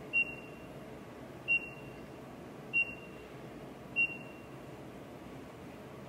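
Control panel of a Vesta VRP tankless water heater beeping as its minus button is tapped to lower the set temperature: four short, high beeps about a second and a quarter apart.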